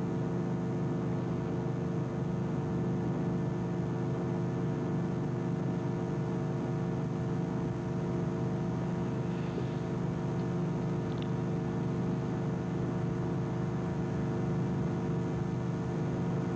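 Steady electrical hum with background hiss on an old videotape recording, a low drone made of several constant tones, with a faint click about eleven seconds in.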